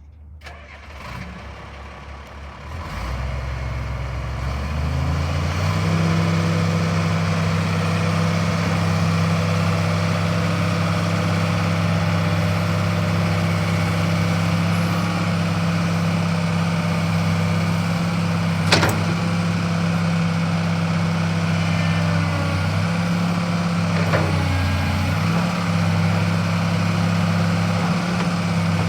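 Diesel engine of a 1999 Komatsu PC400LC excavator running. It speeds up from a low idle over the first few seconds, then holds a steady, higher engine speed. A sharp click comes about two-thirds of the way through, and the engine note dips briefly a few times near the end.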